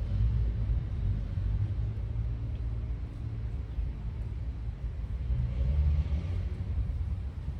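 Wind buffeting the microphone outdoors: a low, steady rumble that swells a little about two-thirds of the way through.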